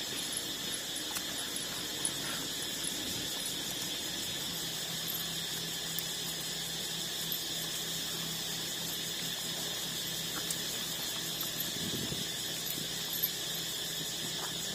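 A steady high-pitched insect drone with faint chirping above it, and a low hum joining about four seconds in.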